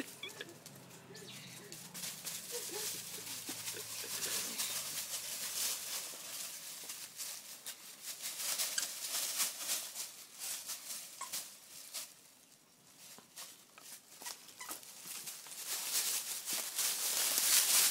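Two dogs playing tug of war: a low growl for the first few seconds, and scuffling and clicking noises throughout, dropping away briefly about two-thirds through.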